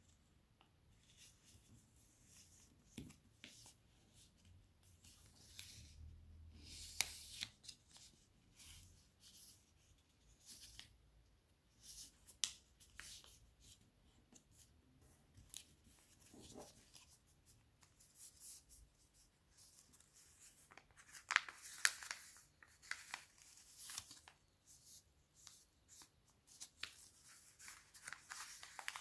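Origami paper rustling and crinkling as hands fold and crease it, in short scattered crackles, with a cluster of louder crackles about 22 seconds in.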